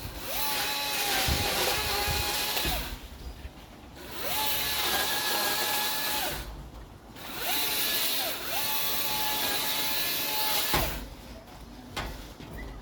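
Electric tree-trimming tool's motor spinning up, running steadily and winding down three times, each run lasting a few seconds, the last one easing off briefly and picking up again.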